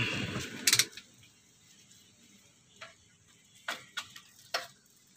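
A brief rustle, then a loud sharp click just under a second in, followed by a few fainter clicks at uneven intervals. The engine is not running.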